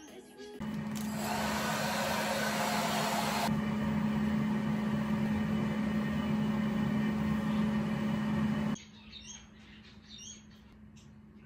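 Hair dryer running: a steady whir of air over a low motor hum. It comes on about half a second in, turns a little softer about three seconds in, and cuts off suddenly about nine seconds in.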